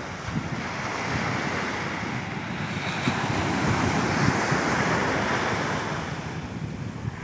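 Surf breaking and washing up on a sandy beach, swelling louder in the middle and easing near the end, with wind buffeting the microphone.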